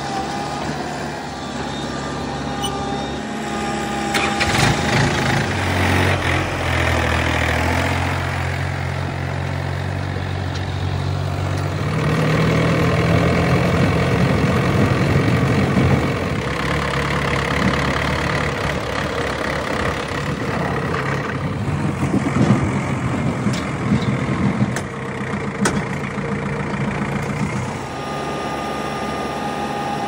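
Diesel engines of a JCB 3DX backhoe loader and a Swaraj 843 XM tractor running under work, their pitch and loudness shifting about four seconds in and again about twelve seconds in. A steady thin whine sits over the engines at the start and near the end, and a few sharp clanks come a little past the middle.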